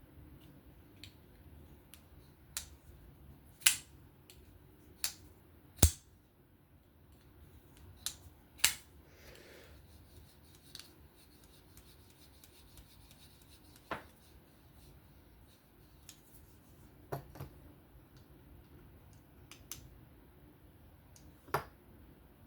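Civivi Sokoke folding knife and small parts being handled: scattered sharp metallic clicks and snaps at irregular intervals, the loudest about six seconds in with a dull knock under it.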